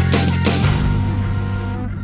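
Outro music ending on a final chord with deep bass, struck at the start, then held and slowly fading.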